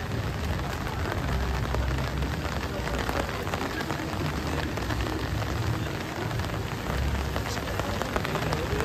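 Steady rain falling on wet pavement, with many small drop ticks and a low rumble underneath.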